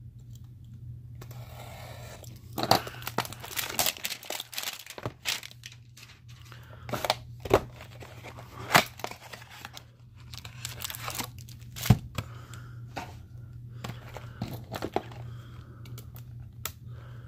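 Cardboard trading-card hanger box being slit with a box knife and torn open: irregular scrapes, crinkling and sharp snaps, the loudest about 7, 9 and 12 seconds in, over a steady low hum.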